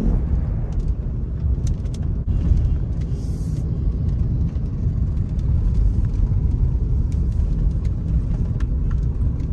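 Steady low rumble of engine and tyre noise inside the cabin of a car driving along a road.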